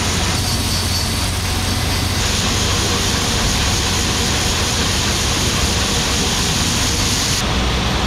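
Shelled corn pouring from a grain cart's unloading auger into a semi trailer: a steady rushing hiss of grain over the low hum of the tractor engine driving the auger. The hiss falls away near the end as the stream thins out.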